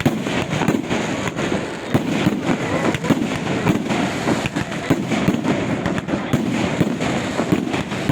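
Aerial firework rockets bursting overhead in rapid succession: many sharp bangs a second over a continuous crackle.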